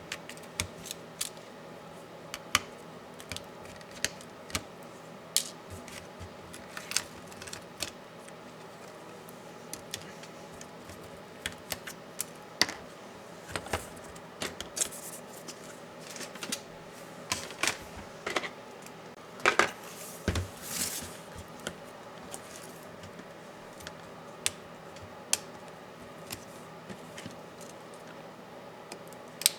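Small, scattered clicks and taps of tools and the plastic and metal parts of a Dell Inspiron 15 7586 laptop being handled during disassembly, with a brief cluster of scraping and rattling about twenty seconds in.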